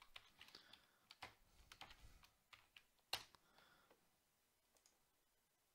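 Faint typing on a computer keyboard: a few scattered keystrokes, the sharpest about three seconds in.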